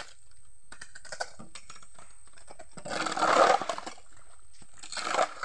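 Hoes and shovels scraping and chopping into wet dirt and gravel: scattered clicks, with two louder scraping bursts, one about three seconds in and a shorter one near the end.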